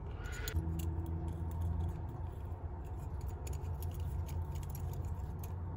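Faint, irregular small metallic clicks from a hex key turning the tiny screw on a KW1 Lishi pick's collar, tightening it to hold the replacement tip in place, over a steady low hum.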